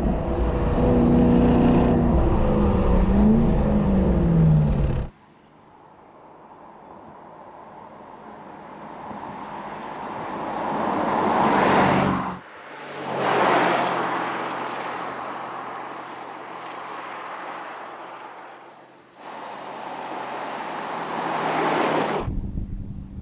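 Porsche Cayenne GTS Coupe's 4.0-litre twin-turbo V8 and sport exhaust under hard acceleration for about five seconds, its pitch dipping and climbing again. After abrupt cuts the car drives past several times, each pass swelling to a peak and then fading.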